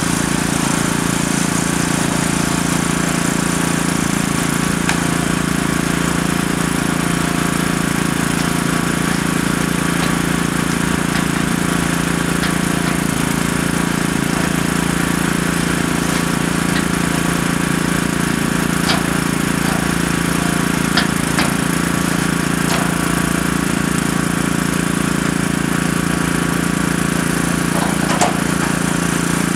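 A hydraulic excavator's diesel engine runs steadily under load while it loads demolition debris into a dump truck. A few sharp knocks of debris come about two-thirds of the way in and again near the end.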